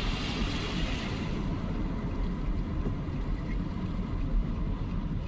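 Steady low rumble of a vehicle running, heard from inside the cab, with a higher hiss that fades away about a second in.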